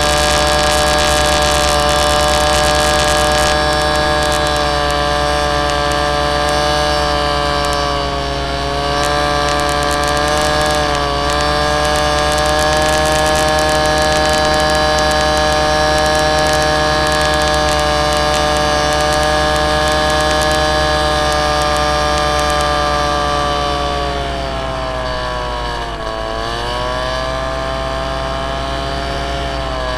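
Model aircraft's motor and propeller, heard from a camera mounted on the plane: a steady, loud whine with a pitch that sags slightly about a third of the way in, drops lower in the last quarter and climbs again near the end as the throttle and airspeed change.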